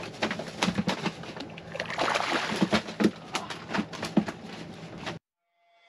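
A hooked mahi-mahi splashing and thrashing at the surface beside the boat, then lifted out of the water on the line, with many irregular slaps and splashes. The sound cuts off suddenly about five seconds in.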